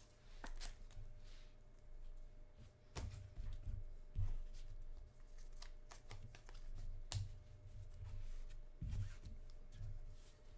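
Football trading cards being handled and flipped through by hand: soft rubbing and flicking of card against card, with a few sharp ticks.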